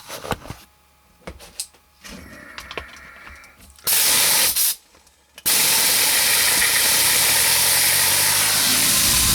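Compressed air hissing into a 3D-printed turbine: a short blast a little under four seconds in, then a steady loud rush from about five and a half seconds, much of it air leaking at a poor hose connection. A few small handling clicks come before.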